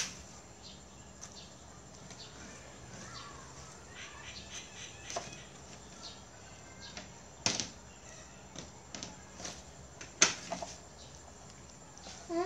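Quiet cooking sounds as strips of papaya are dropped by hand from a plastic basket into a pot of water, with two sharp knocks a few seconds apart, the second louder, as the pot and ladle are handled.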